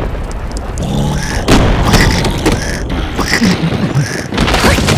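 Cartoon hailstorm sound effects: a low rumble of thunder and a series of heavy thuds as hailstones strike, with short squeaky cries from the cartoon larvae in between.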